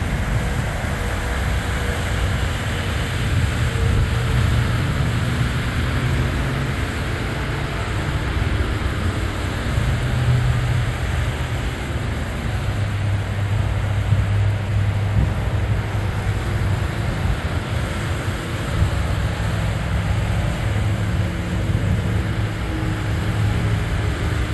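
Traffic on a rain-soaked, flooded road: a steady hiss of tyres through water and spray, with the low drone of passing cars and trucks swelling and fading.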